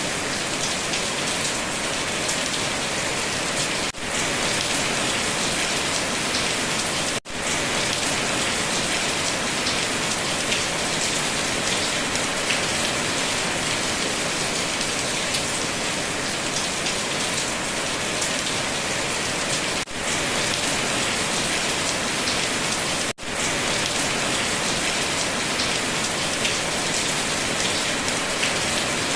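Steady heavy rain falling, an even dense hiss of raindrops on surfaces. The sound dips out for a split second four times.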